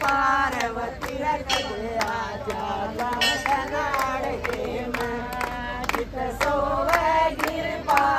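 A group of women singing a Hindi devotional bhajan together, with hand-clapping in a steady beat.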